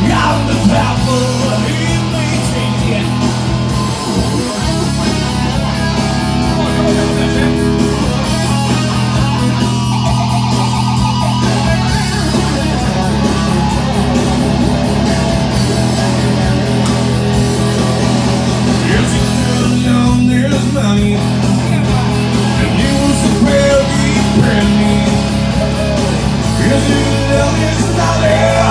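A live rock arrangement of an Irish folk song: electric guitar played through an amplifier over a steady bass line. A man sings at the start and again near the end, with guitar carrying the middle.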